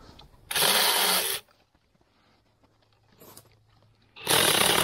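Small 24-volt cordless pruning chainsaw cutting through dead branches in two short bursts, one about half a second in and one near the end, each lasting about a second.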